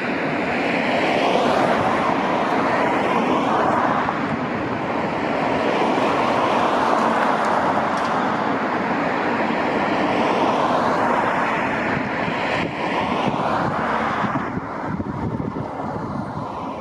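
Road traffic noise from vehicles passing, swelling twice as they go by.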